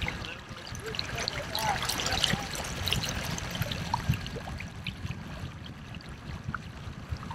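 Steady rush and splash of water from a fishing kayak's wake as it runs at top speed under an electric outboard motor.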